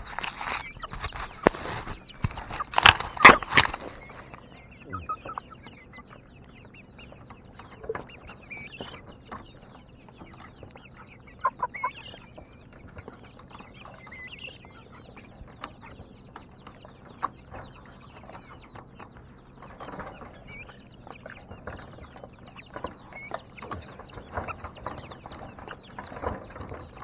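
A flock of chickens clucking and giving short calls, over a scatter of light taps and clicks, with a few louder clatters about three seconds in.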